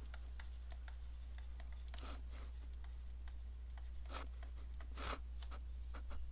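Faint scratching and tapping of a stylus writing on a tablet, in short strokes with a few slightly louder ones, over a steady low electrical hum.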